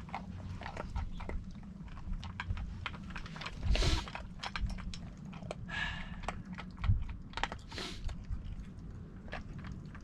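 Golden retriever puppy eating dry food from a metal bowl: rapid, irregular crunching and clicking of chewed kibble. Two louder rustles come about four and eight seconds in.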